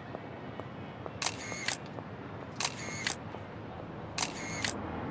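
Camera shutter sound effect, three times, each one a short mechanical snap-and-whir, about a second and a half apart. Faint light clicks are heard in between.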